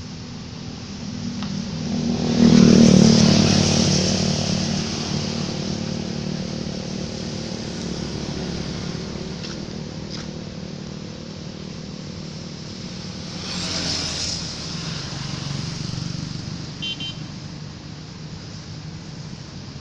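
Road traffic passing: steady engine hum throughout, with one loud vehicle passing close about two and a half seconds in and another, quieter pass-by around fourteen seconds.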